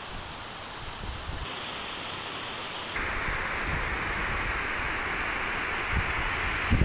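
Water rushing down a stony mountain stream and concrete channel, a steady hiss that gets suddenly louder about three seconds in. A few low bumps of wind buffeting the microphone come near the end.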